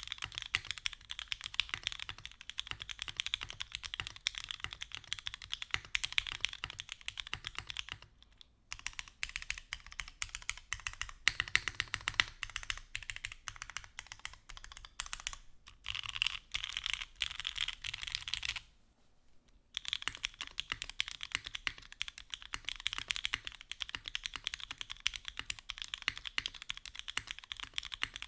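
Fast typing on a New Mode Sonnet mechanical keyboard with Ultraglides switches on an aluminium plate in lattice mount: a dense run of keystroke clacks with a few brief pauses. After a short break about two-thirds of the way through, the keyboard is heard with its aluminium bottom case instead of the copper one.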